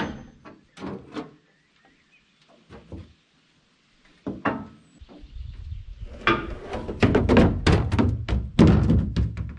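Knocks and thunks of things being handled: a few sharp ones at first, a quiet gap, then a quick run of clunks in the second half over a low rumble.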